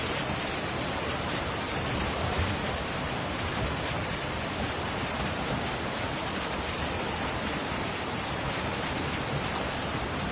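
Steady rushing noise of a river in flood, the muddy current running high and fast.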